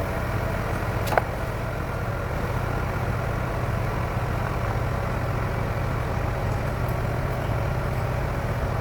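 An engine idling steadily, with a single sharp click about a second in.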